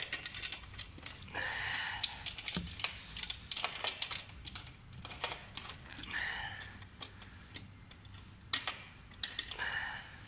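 Hands fitting a red plastic gravity-lock latch onto a table tennis table's metal leg tube: irregular clicks and taps of plastic on metal, with a few short rubbing sounds.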